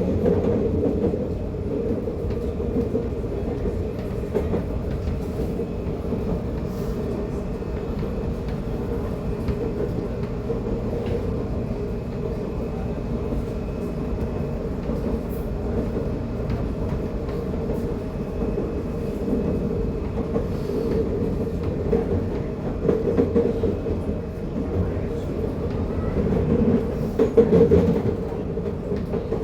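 Series 8500 electric train running at steady speed, heard on board: a constant motor hum over wheel rumble, with occasional faint clicks from the rails.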